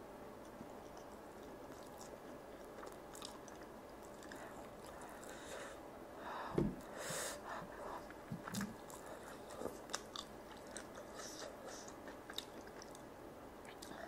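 Close-up chewing of saucy grilled chicken, soft and wet, with scattered mouth clicks that come thicker in the second half. One low thump about halfway through is the loudest sound.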